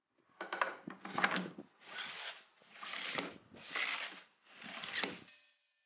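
Plywood sled jig sliding back and forth across the table saw's metal top on its runner: six scraping strokes about one a second, the first two with knocks.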